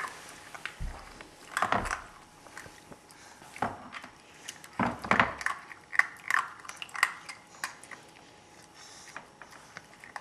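Irregular clinks and knocks of bowls being handled and bumped on a rubber mat, while a puppy eats dry kibble from its food bowl.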